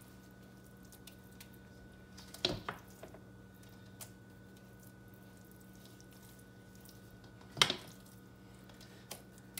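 Metal serving spoon scooping moist cornbread dressing from a stainless steel bowl and spreading it into a ceramic casserole dish: soft squishy scrapes and small clicks, with two louder spoon knocks or scrapes, one about two and a half seconds in and one near the end. A steady low hum runs underneath.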